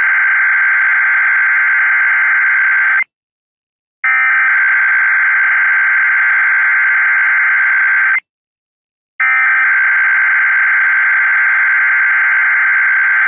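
Emergency Alert System SAME header: three bursts of shrill, buzzing digital data tones, each about four seconds long, separated by about a second of silence. It is the coded message header that opens an EAS alert.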